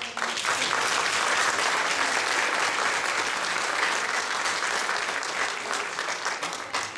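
An audience applauding: dense, steady clapping from many hands that thins out and fades near the end.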